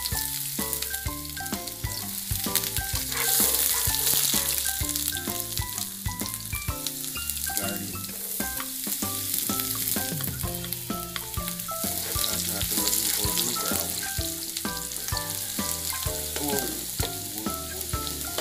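Minced garlic frying in hot oil in a frying pan, a steady hissing sizzle that swells a few seconds in; chopped onion joins it about ten seconds in. Background music of short plucked notes over a bass beat plays underneath.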